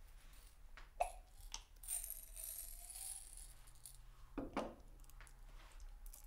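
Pills rattling in a small glass jar as its glass lid is handled. There are two ringing glass clinks, about a second in and again about four and a half seconds in, with a rattle of pills between them.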